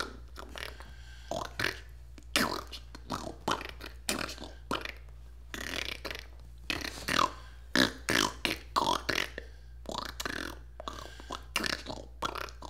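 A person beatboxing: quick, uneven bursts of vocal percussion, about three or four a second, with a few short pitched sounds in the middle.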